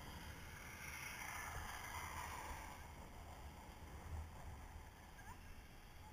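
Skis sliding and carving over groomed snow, a hiss that swells and fades through a turn, over a low rumble of wind on the microphone.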